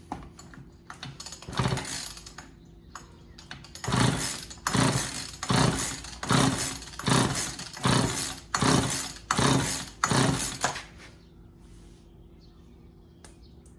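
Husqvarna 136 chainsaw being cranked with its recoil starter cord, one pull and then about nine quick pulls a bit under a second apart. The spark plug is out and a compression tester is in its place, so the engine turns over against compression without firing: a compression test.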